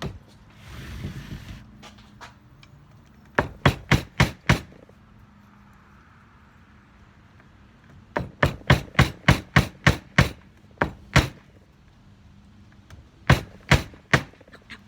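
Hammer tapping on a wooden stick to drive a screen's locking rod into the frame channel: sharp, quick taps in three runs, about four, then about ten, then about four. A brief rustle about a second in.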